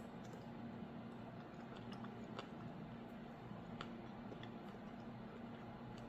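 Faint chewing and a few light clicks of a fork and knife against a plate, over a steady low hum.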